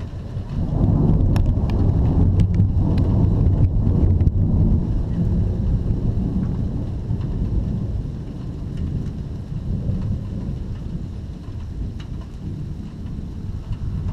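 Rolling thunder from a summer thunderstorm: a deep rumble that swells about a second in, stays loudest for a few seconds, then slowly dies away. A few sharp ticks sound during the loudest part.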